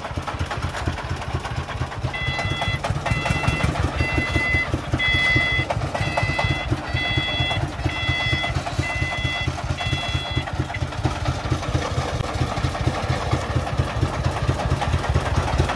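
Diesel engine of a loaded công nông (homemade three-wheeled dump truck) chugging steadily. Over it a reversing alarm beeps about ten times, a little under once a second, starting about two seconds in and stopping past the middle.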